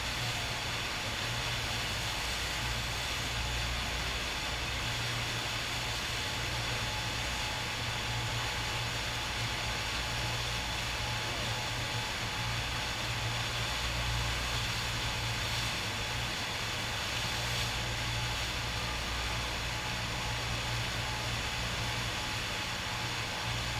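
Steady rush of water from a FlowRider surf machine's pumped sheet of water jetting up the ride surface, a continuous hiss with a low rumble underneath that swells and fades.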